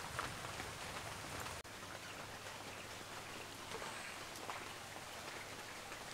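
Rain falling: an even hiss with scattered small drip ticks. It briefly drops out about one and a half seconds in.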